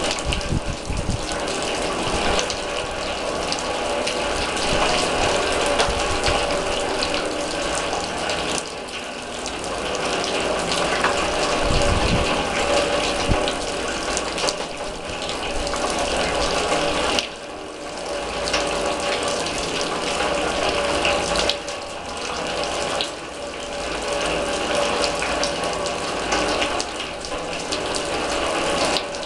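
Rain falling on a steel drum: a dense, steady patter of drops on the metal, with a steady ring from the drum under the hiss of the rain.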